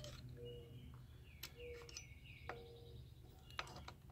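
Faint clicks and short squeaks of a hand tap being turned back and forth in an engine-mount hole of a Kohler Courage aluminum engine block, chasing stripped threads. A bird chirps in the background.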